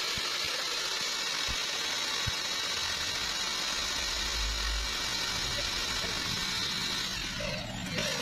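Electric drill running steadily, spinning a homemade impeller pump submerged in a tub, with water spraying from its hose; the drill's whine and the spray fall away about seven and a half seconds in.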